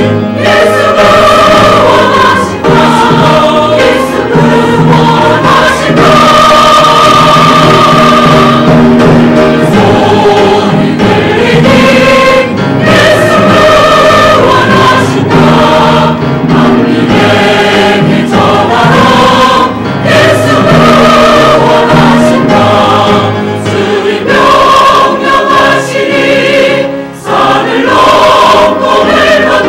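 Church choir singing, many voices sustaining and changing notes together.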